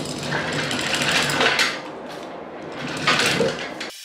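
Hand chain of a 3-ton chain hoist being pulled hand over hand under a heavy load, the chain rattling and clicking rapidly through the hoist. It swells twice and cuts off near the end.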